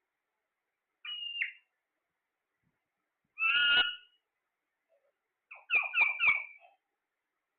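Pet parrot calling in short, harsh squawks: a single call, then a longer one, then three quick calls in a row.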